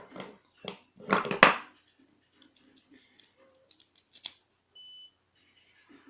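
Small metal lock parts and tools being handled on a wooden board while a cylinder lock is taken apart: a cluster of clicks and scrapes about a second in, then scattered small clicks, with a brief high tone near the end.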